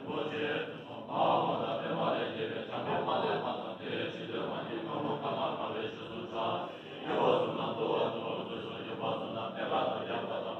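A group of Tibetan Buddhist monks chanting prayers together in one continuous recitation, the phrases swelling and breaking off every second or so.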